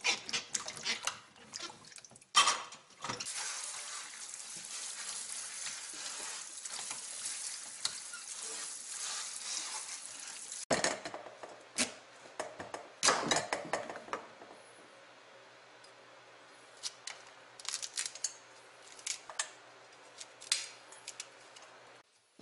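Quinces being washed by hand in a stainless-steel bowl in a sink, with tap water running steadily for about eight seconds. It then cuts off suddenly, followed by a kitchen knife chopping through hard quinces on a wooden cutting board: scattered sharp knocks and clicks.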